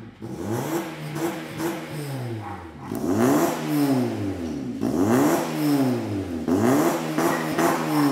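Honda Civic FB's four-cylinder engine revved repeatedly in neutral through an aftermarket exhaust. The pitch rises and falls about five times, each blip lasting about a second and a half, and it gets louder from about three seconds in.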